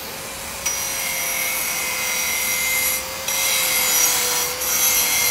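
Angle grinder running with a steady motor whine, then cutting into a metal pipe from under a second in: a harsh, high-pitched metallic grinding. The grinding eases off briefly about three seconds in, then goes on.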